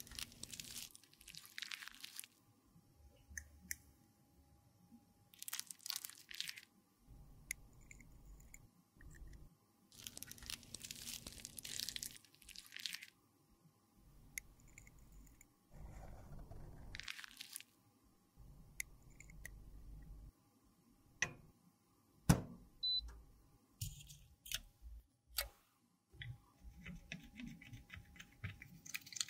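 A metal spatula scrapes soft lipstick out of its tube and scoops chunks of it into a small glass beaker: repeated soft scraping and crunching in short spells, with a few sharp taps past the middle. Near the end a makeup brush is worked in soapy water with a fine bubbly crackle.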